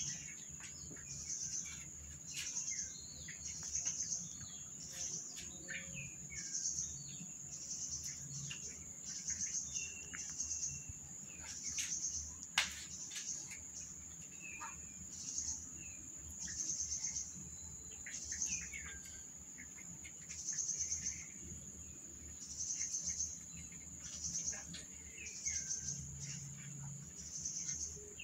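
Insects chirring in a steady high pulse that swells about once a second, with birds chirping and a few short clicks, one sharper than the rest about halfway through.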